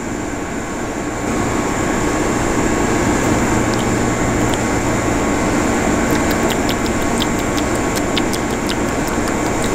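Steady rumble and hum of a train standing at the station platform, a little louder from about a second in, with faint scattered ticks in the second half.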